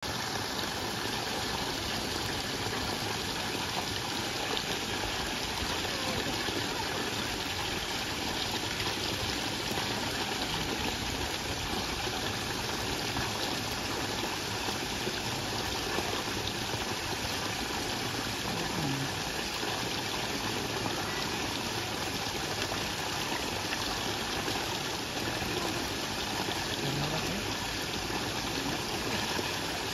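Steady running water: a small stream flowing over rocks into a shallow pool.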